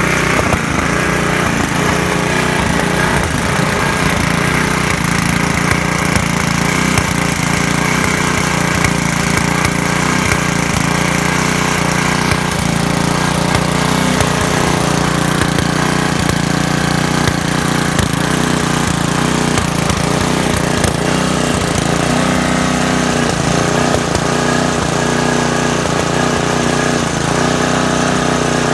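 Briggs & Stratton lawn mower engine running steadily with the blade removed, with small irregular stumbles in its beat. It is the sputtering the owner is trying to diagnose, persisting after a new filter, fresh gas, a new carburetor and an oil change.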